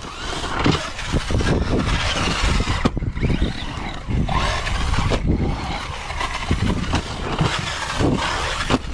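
Traxxas Sledge RC monster truck running on dirt, its brushless motor and tyres making a dense, noisy rush broken by frequent sharp knocks, with short rises and falls in pitch as the throttle changes.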